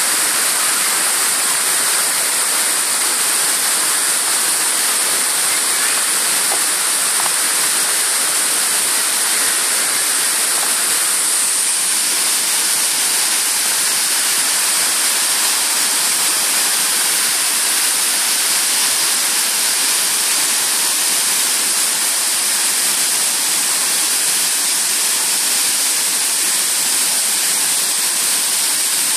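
Steady, unbroken rush of a waterfall: an even hiss of falling water that does not change in level.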